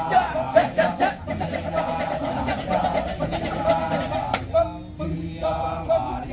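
Kecak chorus of many men chanting the rapid, interlocking "cak-cak-cak" monkey chant in unison, with no instruments.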